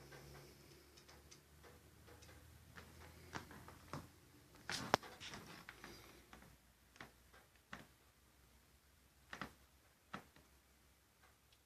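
Scattered light clicks and taps at uneven intervals, with a louder cluster of knocks about five seconds in. A faint low hum fades out at the start.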